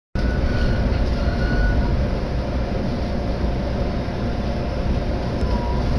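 Jōban Line commuter train running, heard inside the passenger car: a steady rumble of wheels on rails and car noise, with a faint thin high tone coming and going.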